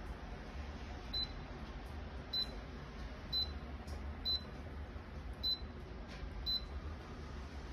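Electronic humidifier's control panel giving six short, high beeps, about one a second and a little irregular, as its buttons or remote are pressed, over a steady low hum from the running unit.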